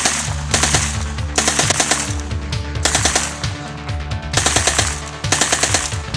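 Uzi 9mm open-bolt submachine gun firing on full auto in about six short bursts, each a rapid string of shots.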